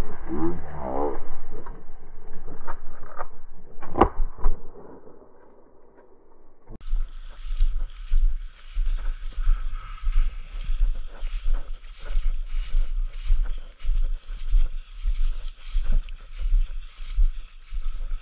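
A voice, then a single sharp shotgun blast about four seconds in. From about seven seconds, footsteps crunch through dry grass and brush at a walking pace, with rustling and low thumps.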